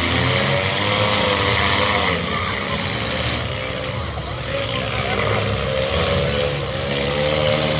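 Engines of several small demolition derby cars running and revving in the arena, their pitch wavering up and down, with crowd voices behind.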